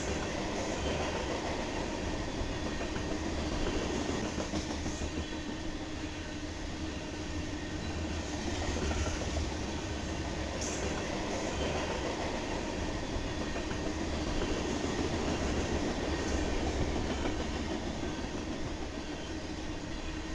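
Freight train of covered hopper cars rolling past, a steady rumble of steel wheels on rail with faint clicking from the rail joints.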